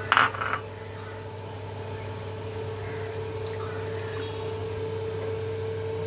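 Peanuts deep-frying in hot oil in a strainer ladle in a kadai: a steady sizzle with scattered small pops, over a constant low hum. A brief louder rustling burst comes just after the start.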